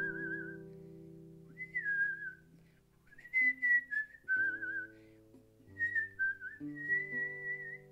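A person whistling a melody with vibrato in several short phrases over ringing acoustic guitar chords, with new chords struck about every second or so.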